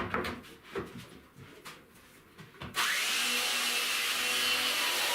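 A few wooden knocks and clatters, then about three seconds in a power tool switches on abruptly and runs steadily at full speed.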